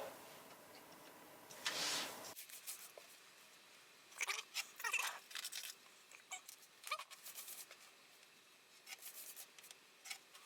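Multi-core audio cable being cut to length and handled: several short crunching snips with rustling and clicks of the cable between them.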